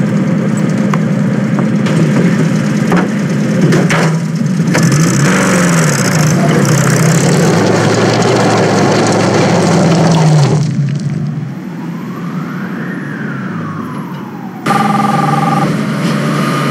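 Vehicle engine running hard under dense road noise, its pitch wavering. About ten seconds in it cuts off suddenly to a quieter passage with one slow siren-like tone that rises and falls. Then comes city traffic with a car horn sounding near the end.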